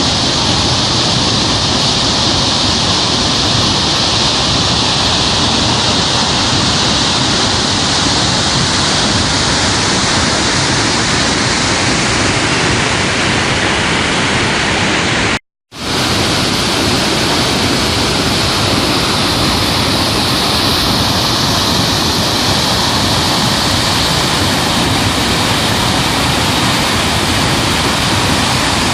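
Edessa waterfalls: a loud, steady rush of falling water. About halfway through it drops out to silence for a moment and then resumes, as at a splice between two recordings.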